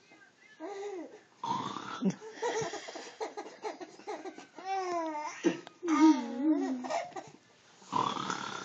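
A baby laughing and babbling in short, high-pitched vocal sounds whose pitch wavers up and down.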